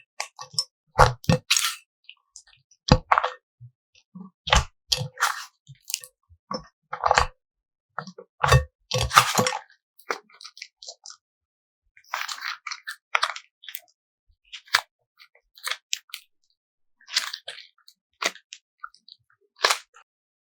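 Cloud clay mixed by hand with candy pills: short, irregular crunching and squishing sounds separated by brief pauses.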